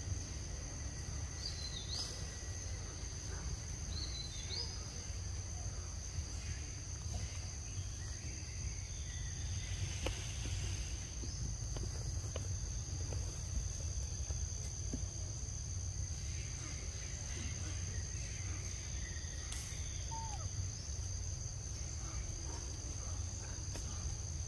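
Forest insects droning steadily in two high continuous tones over a low rumble, with two short rising chirps in the first few seconds.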